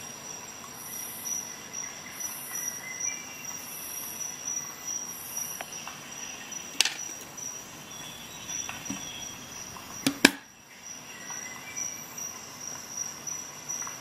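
A few sharp clicks of metal tools being handled and set down on a hard tray: a single one about seven seconds in, then two in quick succession just after ten seconds, the loudest. A steady faint high-pitched whine runs underneath.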